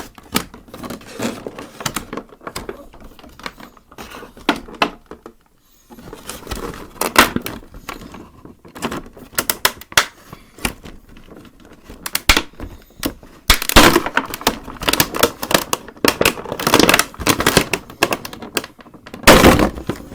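Plastic packaging being handled and pulled away, crinkling and crackling in irregular bursts of clicks, with louder rustling surges about two-thirds of the way through and near the end.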